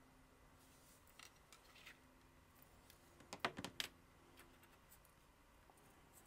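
Quiet handling of small parts: a few light taps, then a quick cluster of sharp clicks about three and a half seconds in, as a white plastic tube and a steel ruler are set down on a cutting mat.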